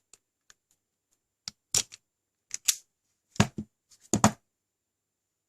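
Automatic wire stripper working on solid copper wire: a series of sharp mechanical clicks and snaps from the jaws and handle as it grips and strips, starting about a second and a half in, the last ones the loudest.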